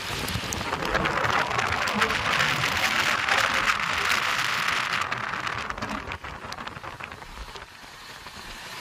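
Wind rushing past the open door of a moving passenger train, mixed with the train's running noise and a spatter of small clicks; it eases off after about five seconds.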